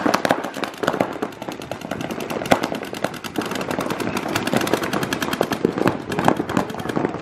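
Several paintball markers firing rapid strings of shots at once, a dense run of overlapping pops with no pause.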